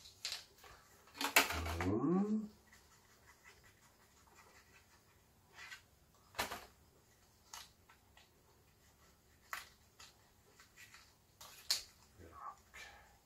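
Hands handling and pressing stiff white paper on a glass board: scattered short rustles and taps. About a second and a half in comes one louder noise whose pitch rises.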